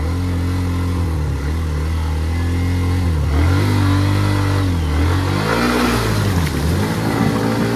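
Hero Xtreme 125R's single-cylinder engine revving as the motorcycle rides into a fast-flowing river; the revs dip and rise several times. Water splashes around the bike through the middle of the stretch.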